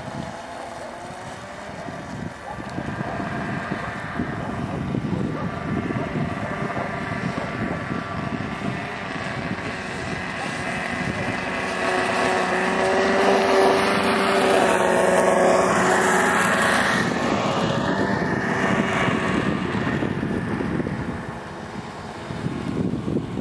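Arctic Cat XF800 Sno Pro snowmobile's two-stroke twin engine running as the sled rides, getting louder through the middle and fading toward the end.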